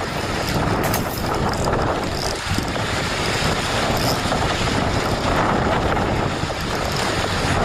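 Wind buffeting the microphone: a steady, fairly loud rumbling noise, with a brief click about a second in.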